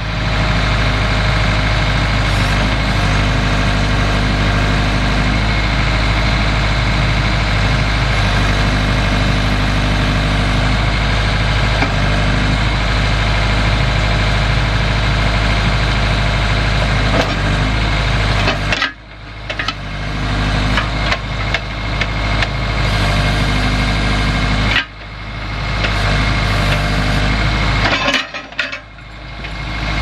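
Engine of the machine carrying a Case D100XR backhoe attachment running steadily and loud. Near the end the sound drops off suddenly three times and climbs back up each time.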